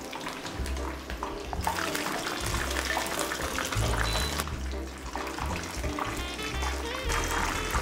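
Battered salt cod pieces frying in hot oil in a wok: a crackling sizzle that gets louder about a second and a half in. Background music with a deep beat plays over it.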